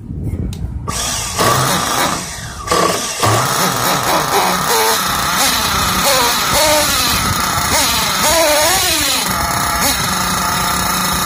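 Small two-stroke nitro glow engine in a Tekno MT410 nitro conversion catching about a second in and running unevenly, its pitch rising and falling for several seconds, then settling into a steady idle.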